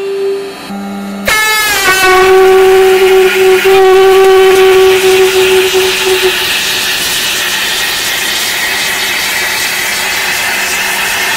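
Canister air horn blaring as a hydraulic press crushes its can: a steady horn tone, then about a second in a sudden louder blast that drops in pitch and settles back to the tone. After about six seconds the horn gives way to a loud hiss of gas spraying from the crushed can.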